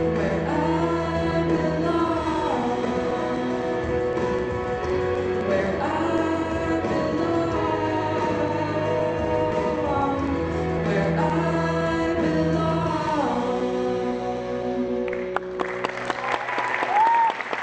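Singing with instrumental accompaniment in long held notes, ending on a sustained chord. About two seconds before the end applause breaks out, with a short rising whistle near the end.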